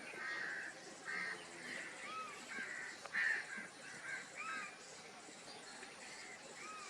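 Crows cawing, many short calls following one another, the loudest a little after three seconds in.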